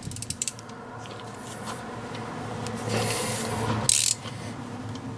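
Metal workshop parts and tools being handled while a wheel stud is worked into a rear hub: a few quick clicks, then rubbing and scraping that builds about three seconds in, and one loud short scrape about four seconds in, over a steady low hum.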